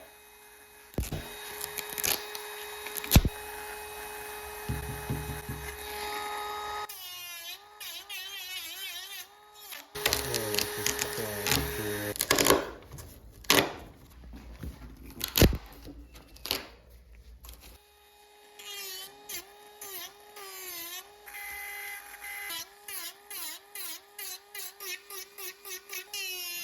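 Loose, damaged fiberglass being pried and stripped off a surfboard: scraping, cracking and sharp knocks, loudest in the first two-thirds, with background music.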